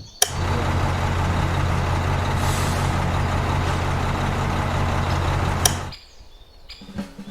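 Heavy truck engine running steadily, a low drone under a broad hiss; it starts with a click and cuts off suddenly about six seconds in.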